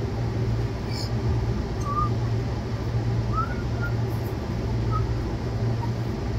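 Steady low outdoor rumble, with a few short, faint bird chirps scattered through it.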